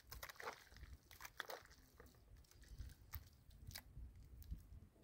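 Near silence broken by faint, scattered clicks and crunches, about a dozen over the few seconds.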